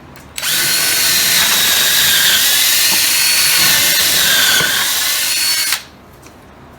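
Cordless drill running for about five seconds, its whine wavering slightly as it works into a wooden board, then stopping abruptly.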